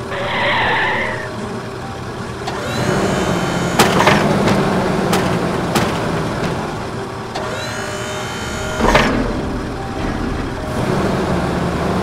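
Cartoon garbage truck sound effects: a steady engine hum with a brief hiss at the start, a rising mechanical whine that comes twice as the tipping body is raised and lowered, and a few sharp knocks as the load is dumped.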